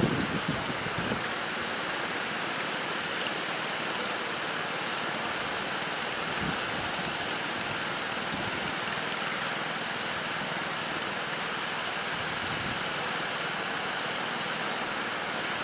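Steady rushing noise of surf and strong wind, with a few brief low thumps of wind on the microphone near the start.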